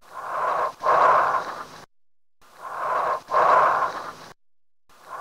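Chest auscultation recording of bronchial (tubular) breath sounds: two full loud breaths, each an inspiration, a little silent pause, then an expiration at least as long as the inspiration, with a third breath starting near the end. Heard over the chest, this tubular sound indicates consolidation of the underlying lung, from alveolar collapse or alveolar fluid filling.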